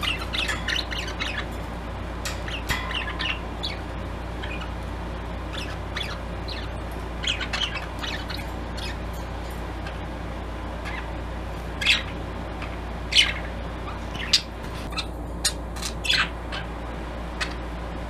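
Pet budgerigars chirping and chattering in quick clusters of short calls, with several louder single squawks in the second half.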